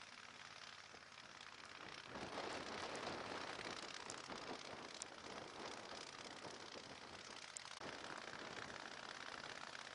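Blizzard wind: a steady rushing noise that swells about two seconds in and eases slightly near the end, with a few faint clicks.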